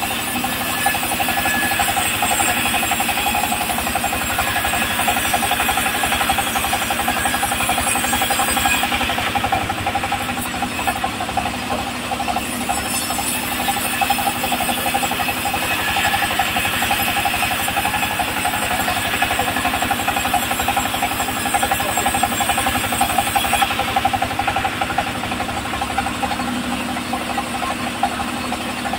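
Homemade sawmill bandsaw ripping a teak board lengthwise, belt-driven by a stationary engine that runs steadily under load with a rapid knocking beat. The blade's high hiss thins out about nine seconds in and again near the end.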